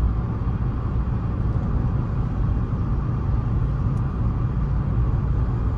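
Steady low road and engine rumble of a Volkswagen Fox on the move, heard from inside the car's cabin.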